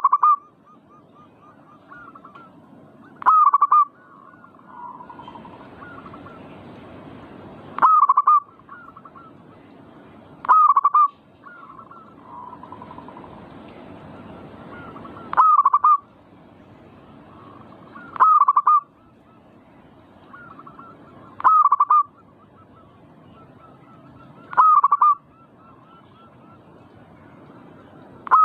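Zebra dove (perkutut) cooing: a short loud phrase of rapid notes repeated about every three to four seconds, eight times in all, each trailed by softer notes.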